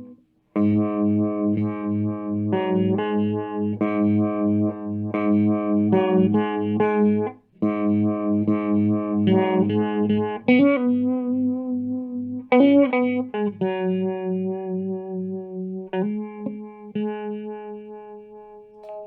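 Squier Classic Vibe Starcaster electric guitar played through an amp with light overdrive: chords strummed in a steady repeated rhythm, stopping briefly twice, with a couple of string bends in the middle. Near the end it settles into sustained, ringing notes.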